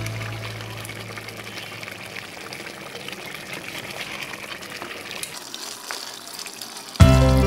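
Crab masala gravy simmering in a pot on a low flame: a steady bubbling hiss with many small pops and crackles. Background music fades out at the start and comes back in suddenly near the end.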